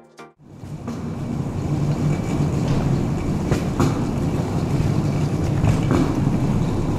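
Steady low rumble of an underground parking garage's enclosed air, with a few faint footsteps clicking on the concrete floor.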